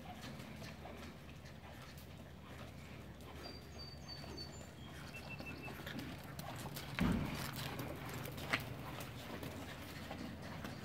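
A horse walking on soft sand arena footing, its hoofbeats irregular and soft, with one louder thump about seven seconds in as it passes close by.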